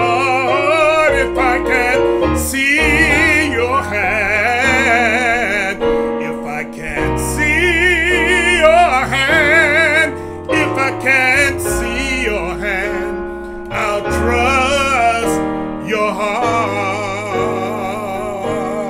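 A man singing a gospel song solo, holding long notes with heavy vibrato, over a sustained instrumental accompaniment.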